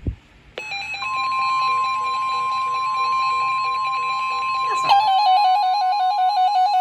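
NOAA Weather Radio warning alert tone, a steady 1050 Hz tone, sounding together with weather radios' own pulsing electronic alert beeps; about five seconds in, a faster warbling alarm from another radio joins. The tone and alarms signal that a warning, here a severe thunderstorm warning, is being broadcast.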